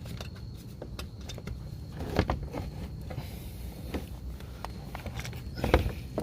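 Plastic engine splash guard being handled and pushed into place under a car: scattered light knocks and scrapes, with two louder clatters about two seconds in and near the end, over a steady low hum.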